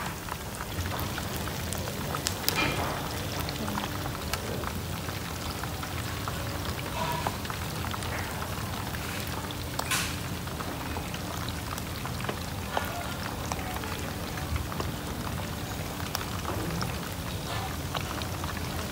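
Hot oil in a wok sizzling and crackling steadily as battered pieces and small shrimps deep-fry, with a few sharper crackles about two and a half and ten seconds in.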